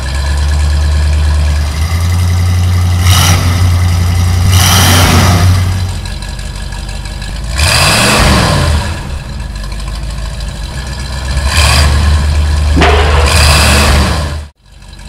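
Truck engine sound effect rumbling and revving, the pitch rising and falling several times, cutting off suddenly near the end.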